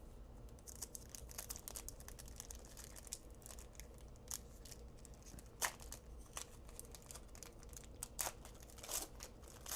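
Faint crinkling and tearing of a trading card pack's wrapper as it is handled and opened, with many small crackles and a few sharper ones in the second half.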